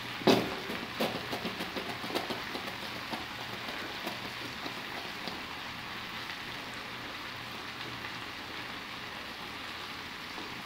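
Steady sizzling hiss of a tomato-and-meat stew cooking in enamel pots on a gas stove. In the first few seconds a run of knocks and clicks as tomato purée goes into the pot and the spoon works it, the loudest just after the start.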